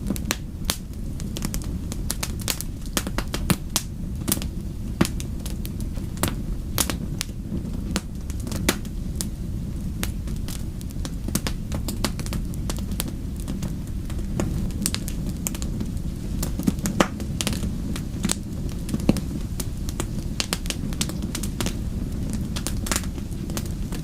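Wood fire crackling: frequent sharp, irregular pops and snaps over a steady low rumble of the flames.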